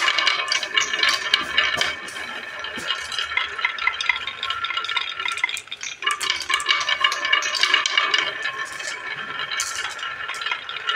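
Marbles rolling and clattering through a winding serpentine marble-run groove: a dense stream of small clicks and clinks with a ringing rolling sound, dropping away briefly about halfway through before another batch of balls comes through.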